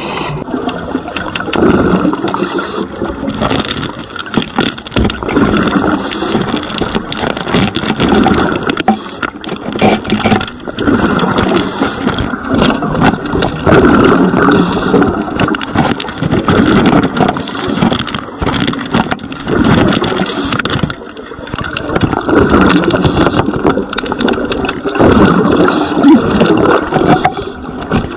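Scuba diver's regulator breathing underwater: a short hiss on each inhale, then a bubbling rumble of exhaled air, about one breath every three seconds.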